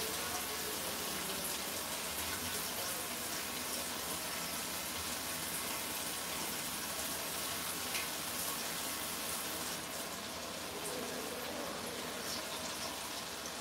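Tap water running steadily into a sink, a constant wash of noise, likely from the coriander being rinsed under the open tap.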